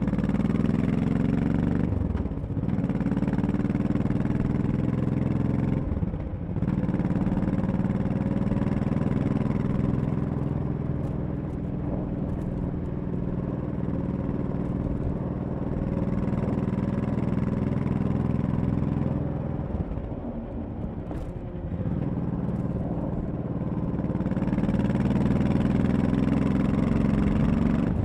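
Honda Shadow 1100's V-twin engine running under way, heard from the bike itself. The engine note dips briefly about two and six seconds in, eases off for a few seconds later on, then grows louder again near the end.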